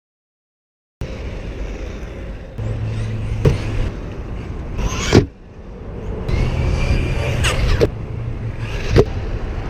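Arrma Big Rock 3S BLX RC monster truck driving, its brushless electric motor whining and rising in pitch, with several sharp knocks of the truck hitting the ground.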